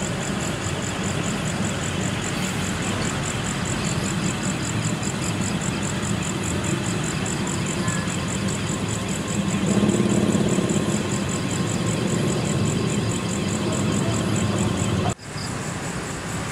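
Engine of the heavy box-girder installation machinery running steadily, growing louder about ten seconds in, with insects chirping in a fast, even high pulse. The sound cuts out briefly near the end.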